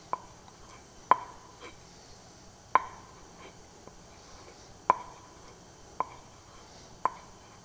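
Carving axe being stropped on a strop loaded with white polishing compound to remove the burr after grinding. Each stroke gives a sharp tap with a brief ring, six in all, about one to two seconds apart.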